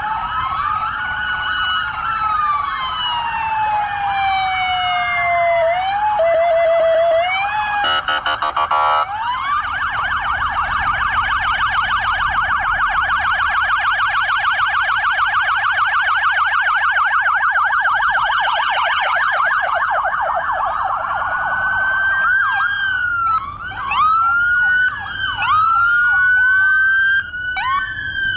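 Sheriff's patrol car sirens approaching. A slow wail runs for the first several seconds, then comes a brief rapid pulsing burst, then a fast yelp. From about two-thirds of the way through, several sirens overlap in short rising whoops as more cars draw near.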